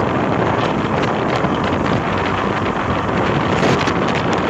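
Strong wind buffeting the microphone of a camera on a moving motorbike: a loud, steady rushing noise.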